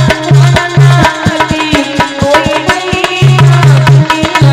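Bhajan music with a fast, steady hand-drum beat under a wavering melody line.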